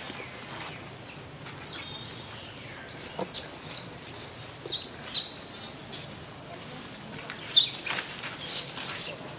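Small birds chirping: many short, high calls, some sliding in pitch, scattered unevenly throughout.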